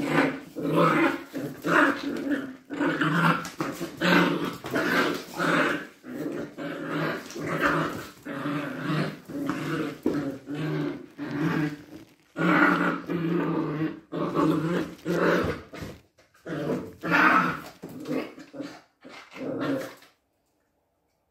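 Puppy growling in play while tugging at a toy: a run of short growls, about two a second, that stops abruptly near the end.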